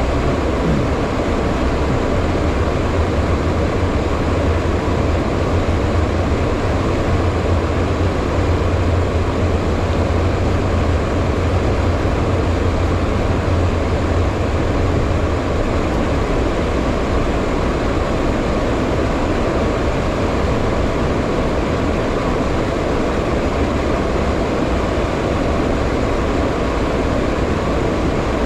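Steady flight-deck noise of a HondaJet in flight: the constant hum of its jet engines and rushing air, with a deep rumble underneath and a faint steady tone above.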